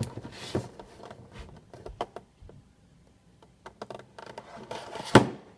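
Funko Pop boxes being handled: scattered light clicks and rustles, with one sharp knock about five seconds in.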